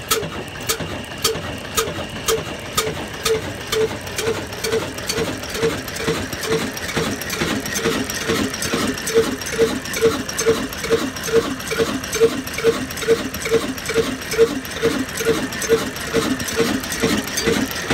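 Old 22 hp single-cylinder horizontal diesel engine with a big flywheel running just after start-up. Its beats are even, about two a second at first and quickening to nearly three a second as it comes up to speed.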